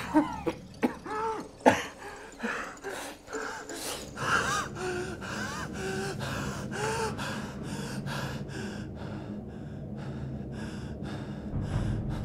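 A man gasping and panting hard in fear, with fast ragged breaths and voiced, whimpering gasps. After about eight seconds these ease into quieter, even panting. A low hum runs underneath.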